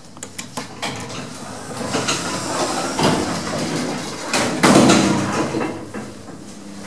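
Doors of a 1960s Marryat & Scott passenger lift sliding, with a run of clicks and clunks, loudest about five seconds in.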